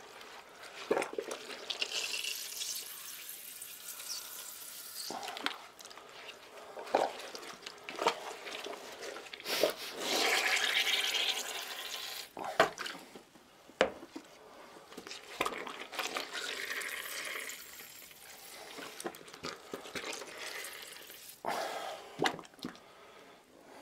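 Hands squeezing and kneading a cloth bag of fermented wheat-flour mash in a stainless steel pot: irregular wet squelching and sloshing of the wash, with short splashes and two longer rushes of liquid being pressed out of the bag.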